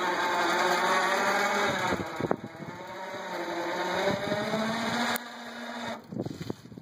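Electric drive motor of a battery-powered trailer dolly running with a whine that drifts down and up in pitch, cutting off about five seconds in.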